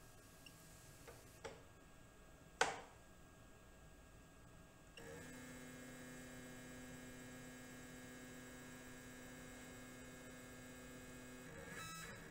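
A couple of light clicks, then the CNC router table's motorized fence drive running with a faint steady hum for about six seconds. It is moving the fence slowly in toward the bit during fence calibration, and it stops shortly before the end.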